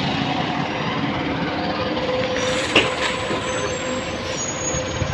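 City bus pulling up with its engine running steadily. About halfway through comes a short hiss of air with a sharp knock just after it.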